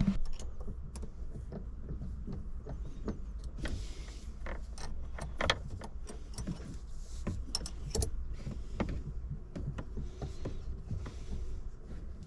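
Hand work on a manual car's exposed gear shifter: irregular clicks, taps and light metallic rattles as a screw on the shifter is tightened with an Allen key and the lever is moved.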